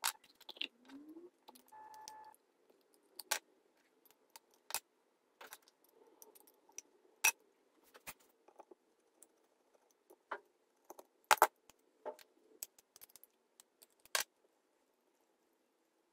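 Metal parts and a small tool clinking and clicking on an Albright contactor as it is dismantled by hand. The sharp, irregular taps come at uneven gaps, with a few louder knocks in the second half.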